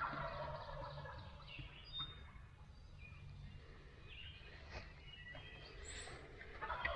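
Wild turkey gobbling, once right at the start and again near the end, with small songbirds chirping faintly in between.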